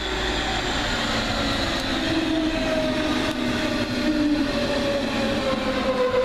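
Red DB regional electric multiple unit running past along the platform: rumble of the wheels on the rails with the whine of the electric traction drive, several tones gliding slowly down in pitch. It grows louder over the first couple of seconds as the train draws level.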